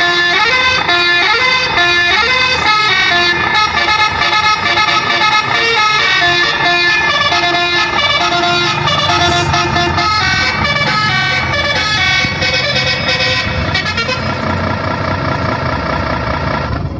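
Telolet-style musical bus horn on a miniature RC bus, playing a tune of several horn tones sounding together that step from note to note. The tune thins out near the end as a low rumble grows.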